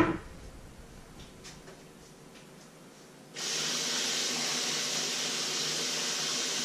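A short knock, then from about halfway through a kitchen tap running water in a steady hiss.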